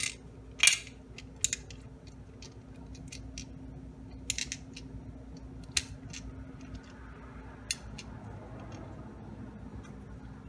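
Steel BBs clicking as they are loaded one by one into a 3D-printed plastic carriage's ball-bearing track and tick against each other. Scattered sharp clicks, the loudest less than a second in.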